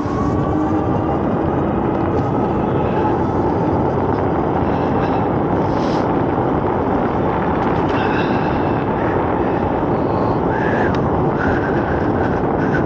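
Steady rush of wind on the handlebar-mounted camera microphone, together with tyre noise, as an Eahora Juliet electric bike rides on throttle along a paved road.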